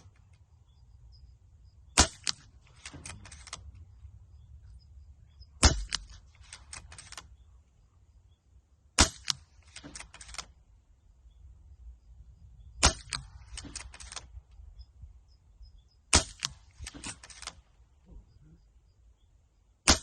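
Brocock Ghost HP .25 calibre PCP air rifle firing steady, evenly paced shots, about one every three and a half seconds, five in all with a sixth right at the end. Each sharp report is followed by a quick run of smaller clicks.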